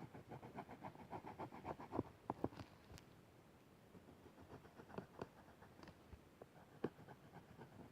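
Faint scratchy strokes of a Chameleon art marker shading on paper, a quick run of about five strokes a second for the first two seconds, then a few light scattered clicks and taps.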